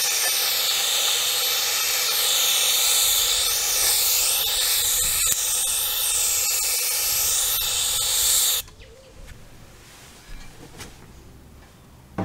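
Paint spray gun hissing steadily while spraying white paint, then cutting off suddenly a little over eight seconds in. The rest is quiet apart from a short click near the end.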